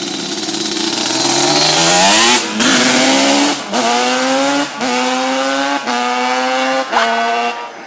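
1990 Yamaha Banshee's twin-cylinder two-stroke engine, on T6 expansion-chamber pipes, accelerating hard up through the gears. The pitch climbs in each gear and drops at each of about five quick upshifts, roughly a second apart, and the engine fades near the end. It sounds clean.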